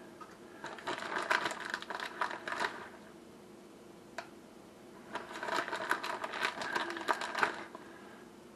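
Rustling and crinkling of shredded cheese being spread by hand over a pizza in a baking dish, in two spells of dense small ticks with a single sharp click between them.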